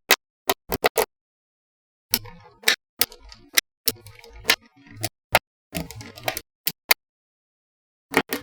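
Small magnetic balls clicking and clinking together, in single sharp snaps and short rattling runs with dead-silent gaps between, about two seconds of silence coming about a second in.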